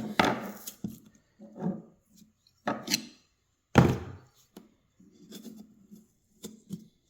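Knife scraping and prying under the glued hard plastic tweeter ring of a car speaker, with short knocks and handling clatter; the loudest, a sharp knock, comes about four seconds in, followed by fainter scratching.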